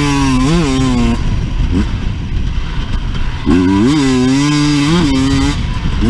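Husqvarna enduro motorcycle engine revving hard as it is ridden, its pitch climbing and dropping with the throttle. The revs fall away for about two seconds after the first second, then climb again and ease off near the end.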